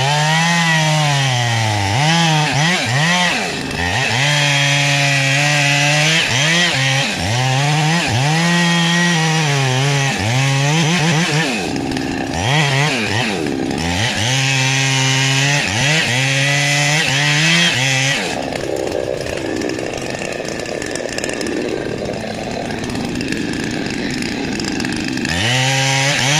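Two-stroke chainsaw cutting into a rain tree's trunk, its engine pitch repeatedly sagging under load and rising again as it bites into the wood. About eighteen seconds in the high engine note drops away to a rougher, lower sound, and near the end the saw revs up again.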